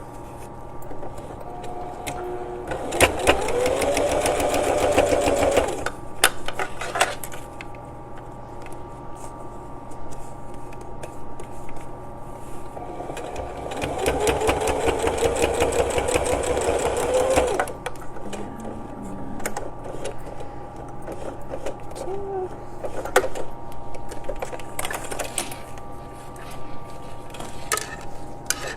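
Sewing machine stitching in two runs of a few seconds each, its motor pitch rising as it speeds up and then holding steady. Quieter clicks and handling sounds come between the runs.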